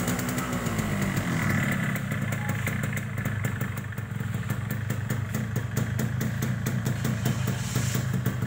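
Yamaha RX-King 135's two-stroke single-cylinder engine idling, its revs falling back in the first second or so, then running at a steady, rapidly pulsing idle.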